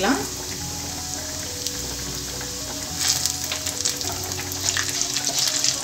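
Ghee sizzling and crackling in a nonstick kadai as curry leaves, green chilli, ginger and cumin fry for a tempering, with a wooden spatula stirring. The crackling grows louder and busier about three seconds in.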